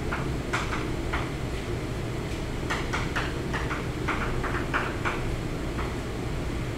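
Chalk writing on a blackboard: short, irregular taps and scrapes over a steady low room hum.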